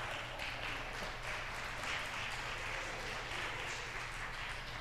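Congregation applauding, a steady patter of many hands clapping at once in a large hall.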